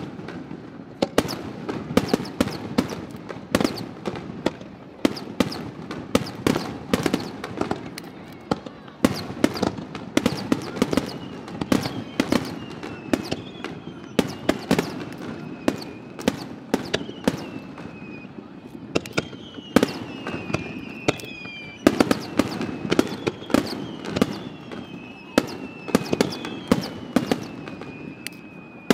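Aerial fireworks shells bursting in quick succession, a steady stream of sharp bangs and crackles. From about a third of the way in, several falling whistles sound over the bangs.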